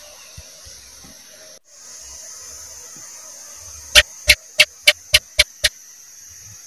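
House gecko (cicak) calling: a run of seven sharp chirps, about four a second, over a steady high hiss.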